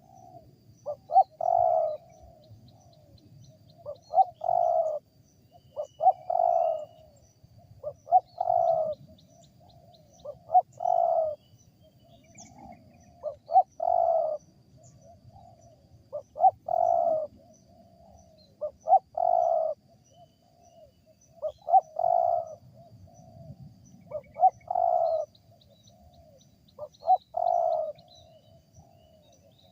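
Wild spotted dove (tekukur) cooing over and over, a call phrase of a couple of short notes and a longer coo about every two and a half seconds. The call is an unusual, odd-sounding one for this species.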